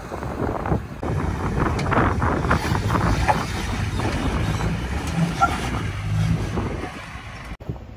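Jeep Wrangler Rubicon's engine pulling steadily at low revs as it crawls up steep slickrock, with a low rumble of tyres and wind noise.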